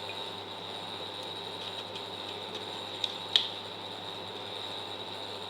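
Steady hum and hiss of a stove heating a pot of water, with a faint high whine. About three seconds in come two light clinks, the second louder, of a spoon against a glass.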